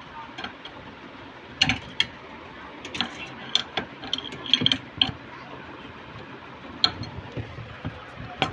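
Irregular sharp clicks and knocks from tools and parts being handled while a motor is fitted into a washing machine, some in quick clusters.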